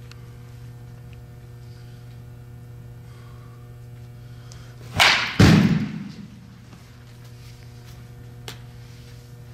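Baseball bat striking a ball off a batting tee with a sharp crack, followed about half a second later by a louder, deeper thud that dies away over about a second. A steady low hum sits under it throughout.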